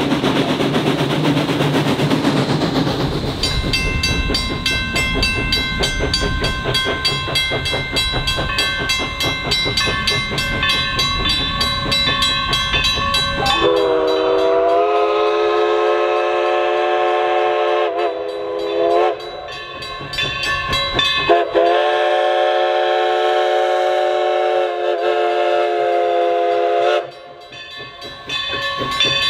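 Everett Railroad No. 11, a 2-8-0 steam locomotive, running with its train: a loud low rumble, then several seconds of high, steady, thin tones, then two long blasts of its chime steam whistle sounding a chord, each rising briefly into pitch at the start, with a third blast starting near the end.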